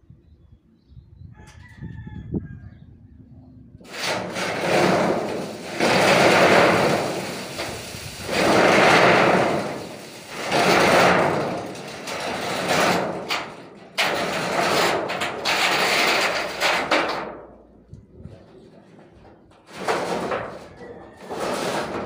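Corrugated galvanized steel roofing sheets scraping and rumbling as they are dragged up over the steel roof purlins, in a series of long noisy pulls about every two seconds. The pulls stop for a couple of seconds near the end, then one more follows.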